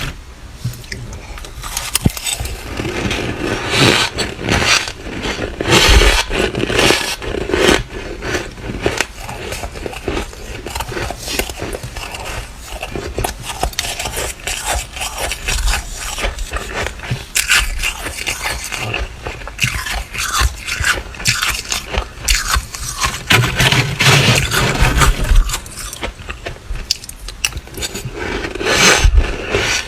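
Close-miked crunching and chewing of flaky, squeaky freezer frost: a dense, irregular run of crackles and scrapes.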